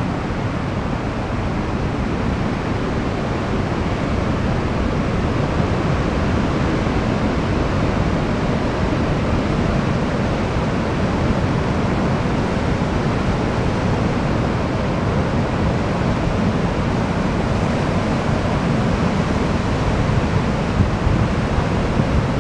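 Pacific Ocean surf at a king tide: a steady rush of waves breaking offshore and foamy water washing in over the beach, with no let-up.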